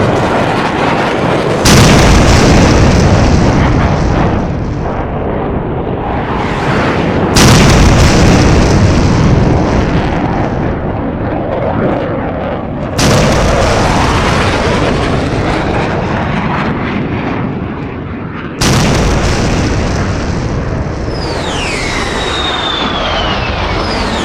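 Four loud explosion sound effects about five to six seconds apart, each hitting suddenly and then rumbling away. Near the end, high whistling tones glide downward.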